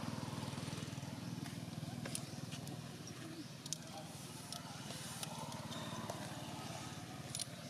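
A low, steady motor hum, finely pulsed, with a few sharp clicks scattered through it.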